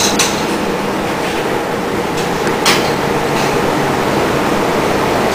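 Small lawnmower engine running steadily on 100% HHO (oxyhydrogen) gas, a loud continuous mechanical noise, with a sharp click about two and a half seconds in.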